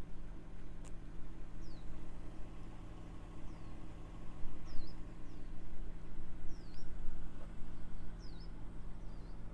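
Small birds chirping: short, quickly falling chirps, about one a second, over a steady low hum.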